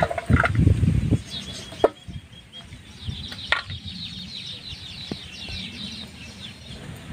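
Birds chirping in quick high-pitched runs, with a few sharp clicks of a blade against a steel plate as raw pork is cut by hand. Low bumping and handling noise fill the first second.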